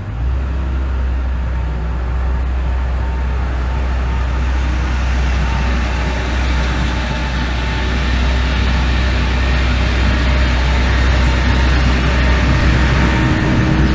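A heavy engine running steadily at a constant speed with a deep, low drone that starts suddenly and grows slightly louder toward the end.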